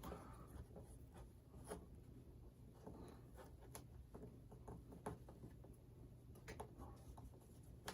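Near silence with faint, scattered small clicks and light rubbing as electrical tape is pulled and pressed down by hand along a panel.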